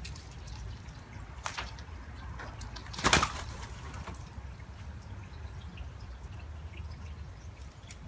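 Spotted doves' wings clattering as they take off: a short, loud flurry about three seconds in, with a fainter flutter about a second and a half in.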